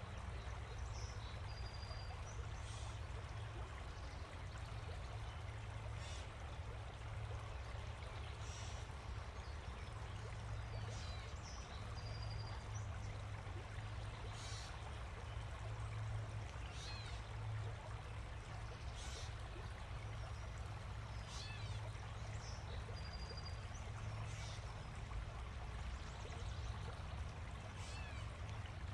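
Steady rushing ambient noise with a strong low rumble, and faint short high chirps now and then.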